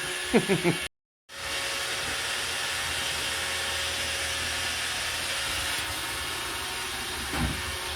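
iRobot Roomba robot vacuum running, a steady, noisy whir of its vacuum motor and brushes. The sound cuts out briefly about a second in, then picks up again and holds steady.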